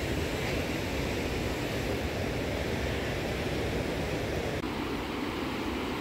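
Steady rushing roar of a fast river running over whitewater rapids. About four and a half seconds in, the sound changes slightly and loses some of its upper hiss.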